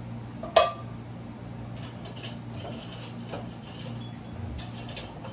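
Kitchen clatter of dishes and utensils being handled: one sharp clink about half a second in, then scattered fainter clinks and knocks, over a steady low hum.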